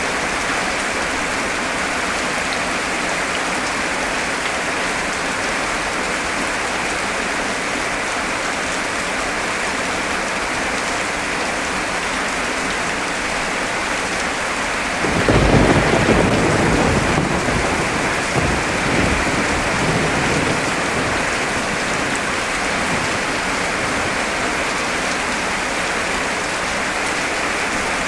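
Heavy rain hammering down steadily. About halfway through, a clap of thunder breaks and rumbles away over several seconds.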